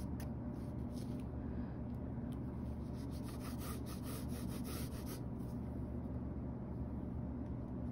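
Faint scratching of a graphite pencil drawing a light line across sketchbook paper, with a few soft ticks as pencil and paper are handled, over a steady low hum.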